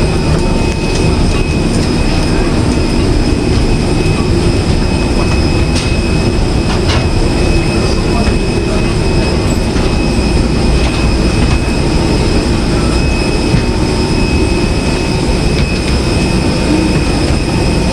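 Steady airliner cabin noise at the gate: an even rumble of the cabin air system with a few thin steady whines above it, while the plane is still boarding.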